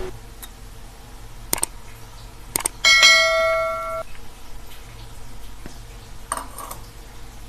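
A couple of light clicks, then a metal kitchen vessel is struck and rings with a bright metallic tone for about a second before being damped suddenly. A smaller clatter of utensils follows near the end.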